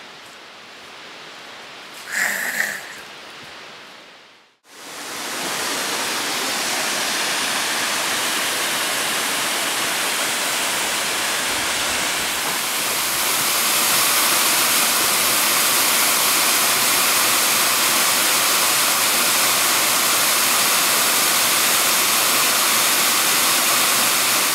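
Waterfall and cascading stream rushing steadily, starting suddenly about four and a half seconds in after a quieter stretch, and growing louder about halfway through.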